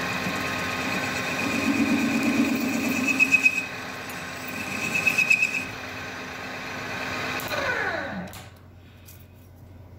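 Metal lathe running with a steady pitched whine as a high-speed-steel tool bit chamfers the end of a threaded stud bolt, the cut growing louder twice. About eight seconds in, the lathe is switched off and its pitch falls away as the chuck spins down.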